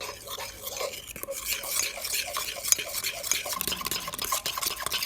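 A fork stirring mashed banana, sugar, milk and butter in a mug: rapid, continuous scraping and clicking of the fork against the mug, stopping abruptly at the end.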